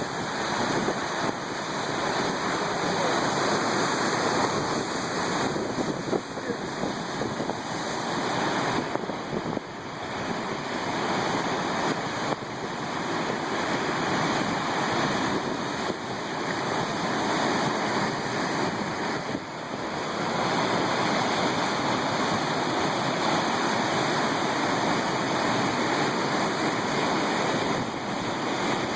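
Storm-driven waves on Lake Superior breaking against the shore: a continuous, loud wash of surf noise that eases briefly about a third and two thirds of the way through.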